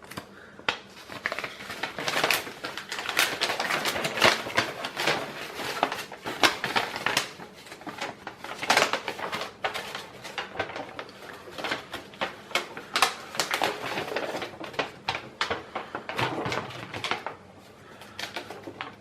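Close, irregular clicking and rustling of hands handling a new baitcasting reel and its packaging, growing quieter near the end.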